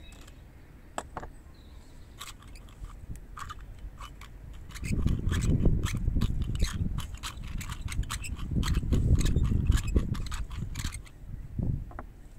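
Hand-cranked pepper mill grinding black peppercorns: a quick, irregular run of sharp crackling clicks as the peppercorns crack, with a low rumble partway through. The grinding stops about a second before the end.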